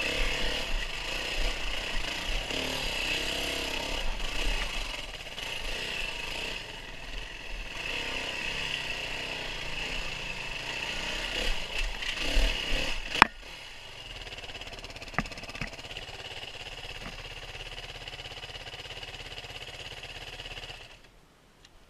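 Off-road vehicle engine running on a dirt trail, revving up and down several times. About 13 seconds in there is a sharp click, after which a quieter steady sound runs on until it drops away near the end.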